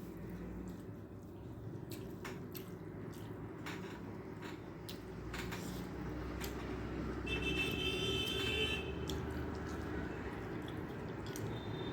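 Close-up eating sounds: wet clicks and smacks of chewing and of rice being mixed with curry by hand, over a steady low hum. A brief high-pitched tone sounds about seven seconds in.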